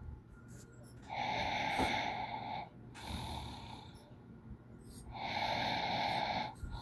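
A person snoring with a squeak in it: two long squeaky snores about four seconds apart, each lasting about a second and a half, with a softer breath between them.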